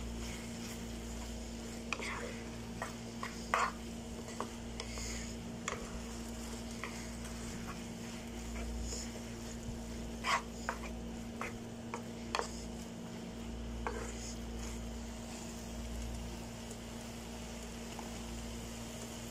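Spatula stirring and tossing instant fried noodles in a nonstick frying pan. Irregular clicks and scrapes against the pan come over a low sizzle.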